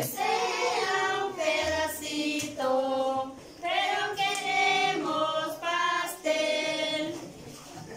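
A group of people singing a birthday song together, in held, drawn-out sung notes.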